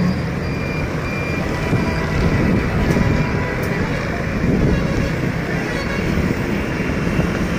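Steady outdoor din of road traffic on the street below, a dense low rumble with wind on the microphone, and a brief faint beeping tone about a second and a half in.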